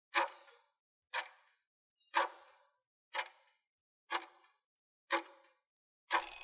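Countdown timer sound effect: a clock-like tick once a second, six ticks in all. Just before the end a ringing bell-like tone starts as the countdown reaches zero.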